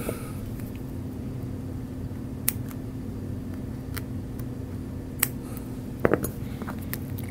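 A few sharp clicks of steel surgical instruments (needle driver and scissors) being handled and set down, a small cluster of them near the end, over a steady low hum.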